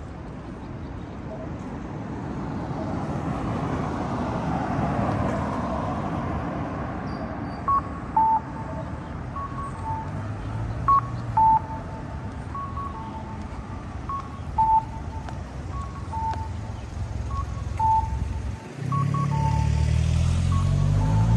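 Street traffic with a repeating two-note electronic chime, a short higher note then a lower one, like the cuckoo-call signal of a Japanese pedestrian crossing. Near the end a heavy vehicle's engine comes in loud and close.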